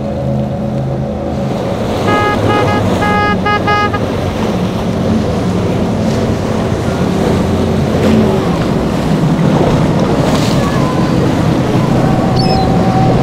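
Powerboat engines running hard with hull spray and chop; about two seconds in a horn sounds a quick string of short blasts. In the second half, growing louder, the Midnight Express center console's triple Mercury 350 outboards pass at speed.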